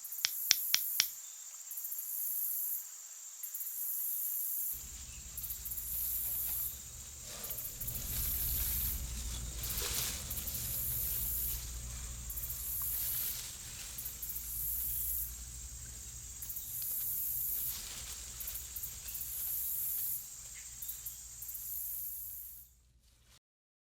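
Added sound effect: a quick run of about five clicks, then a high hiss pulsing on and off about once a second, with a low hum joining about five seconds in, cutting off just before the end.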